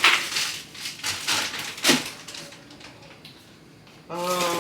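Plastic food packaging rustling and crinkling with light knocks as frozen-food bags are handled, fading out about halfway through. A short hummed vocal sound comes in just before the end.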